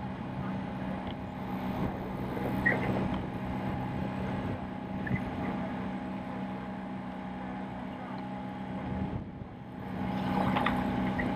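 Steady drone of a following motor launch's engine running at a constant speed over the water, dipping briefly near the end.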